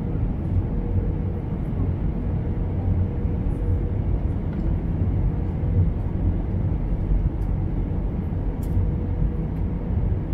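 Airliner cabin noise in an Airbus A320-214 on approach, heard at a window seat over the wing: a steady rumble of the CFM56 engines and of air rushing past the extended flaps, with a faint steady hum.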